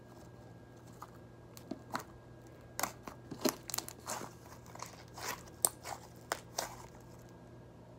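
Glitter slime being squished and pulled between the fingers, making a run of sticky clicks and crackling pops that come thickest in the middle.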